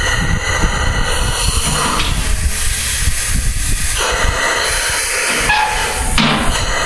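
Compressed air hissing through a backhoe's control valve and bucket cylinders as they are run on shop air instead of hydraulic oil. The hiss changes about two, four and six seconds in as the lever is worked, over a steady low rumble.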